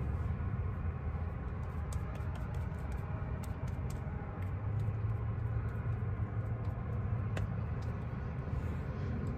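Steady low rumble of wind blowing into the van, with a few faint ticks scattered over it.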